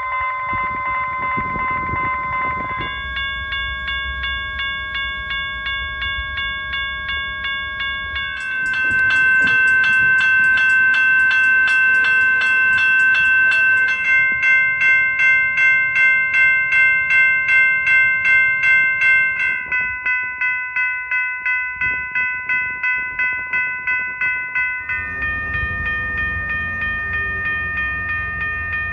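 A series of different railroad crossing bells, one after another, the bell changing every few seconds: each gives a steady, bright, rapidly repeating ring at its own pitch. The series starts with an early General Signals Type 1 prototype bell and reaches an Associated Signal Company bell near the end.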